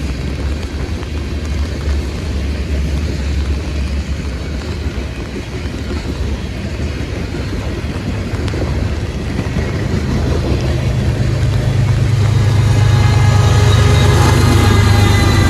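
Freight train passing, with the steady low drone of its diesel locomotives. From about ten seconds in the drone gets louder and higher as a mid-train diesel locomotive draws near.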